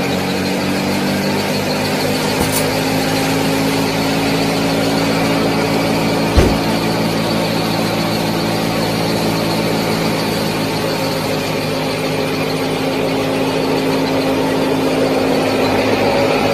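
Small motor running with a steady hum and whine, and a single sharp knock about six seconds in.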